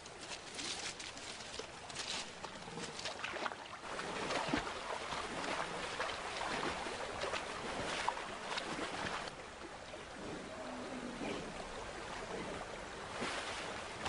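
European bison wading through a shallow, stony river, the water splashing and sloshing irregularly around its legs.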